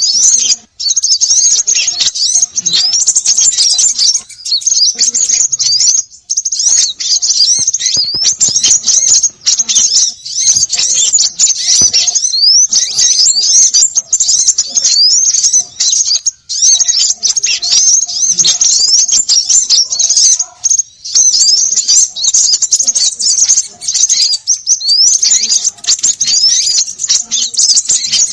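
Dense, noisy chatter of many small birds calling at once: rapid high chirps and short sweeping notes, almost without a break. This is a 'konin' bird-lure recording, meant to draw small birds in.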